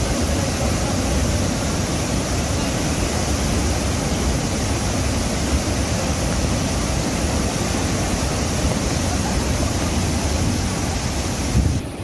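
Athirappilly waterfall in full flow: a steady, loud rushing of falling water with a heavy low rumble underneath.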